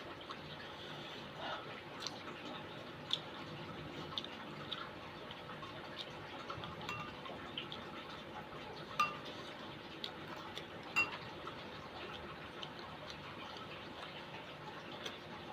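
Metal spoon clinking against a soup bowl while eating: scattered sharp, briefly ringing clinks, the two loudest about nine and eleven seconds in, over a steady low background.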